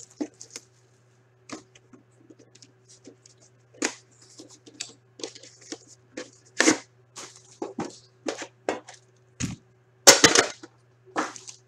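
A box of 2015-16 Premier hockey cards being opened by hand: scattered clicks and crackles of packaging, with a louder crackling burst about ten seconds in, over a faint steady hum.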